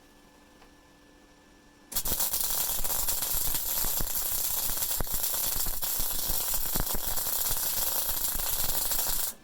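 MIG welding arc from a Rohr MIG-250MI inverter welder set to power 7, wire speed 4, laying a bead on steel: a loud, dense crackle that starts about two seconds in, runs steadily for about seven seconds and cuts off suddenly just before the end.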